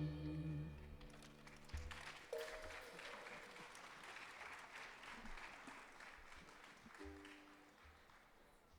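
The last sung note and accompanying chord of a song ring out and fade over the first couple of seconds, then faint audience applause follows.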